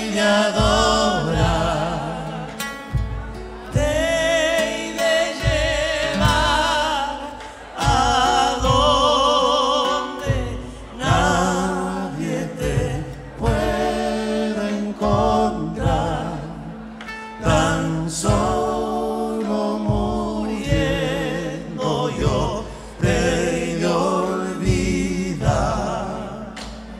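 Argentine folk band playing live: several male voices singing together over guitars and a steady beat from a bombo legüero and drum kit.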